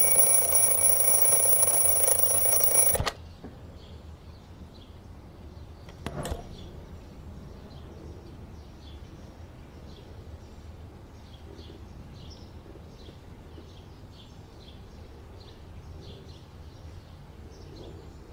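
Twin-bell alarm clock ringing loudly for about three seconds, then cut off suddenly. A quiet room follows, with faint high clicks about once or twice a second and a brief soft sound about six seconds in.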